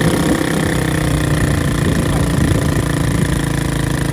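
Motorcycle engine held at steady high revs in a high gear with the clutch let out, running without pulling the bike forward: the clutch friction plates are worn out and slipping.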